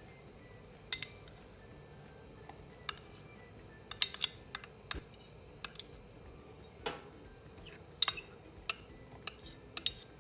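Utensils clinking against a large bowl while shredded cheddar and mozzarella are combined in it: about a dozen sharp, irregular clinks, bunched around four seconds in and again near the end.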